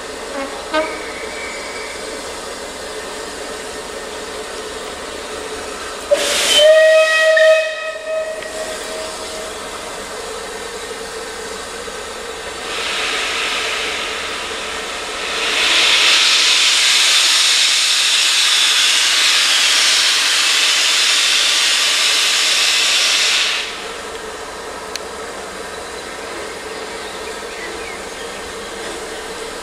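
Bulleid Battle of Britain class steam locomotive giving one whistle blast of about a second and a half. Then a long hiss of steam from its open cylinder drain cocks, which comes in moderately, grows much louder for about eight seconds and cuts off sharply.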